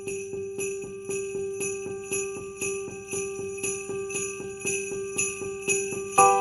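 Background Christmas music led by jingle bells shaken in a steady, even rhythm over a held tone. Near the end a louder melody of several changing notes comes in.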